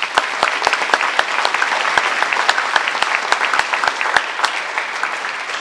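Audience applauding: many people clapping at once, easing off a little near the end.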